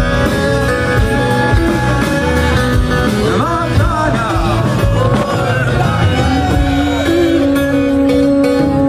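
Live acoustic rock band playing: guitars holding steady chords, with a man singing a wavering melody over them in the middle.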